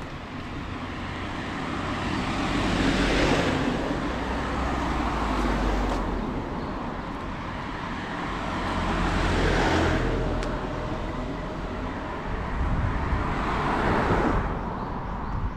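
Cars passing one after another on the road close by: tyre and engine noise swells and fades about four times over a steady low traffic hum.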